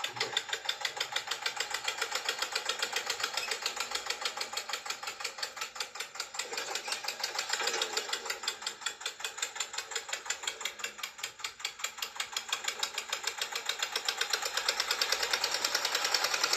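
Small toy tractor's motor and gears running as it drives, a fast, even mechanical clatter of about eight beats a second.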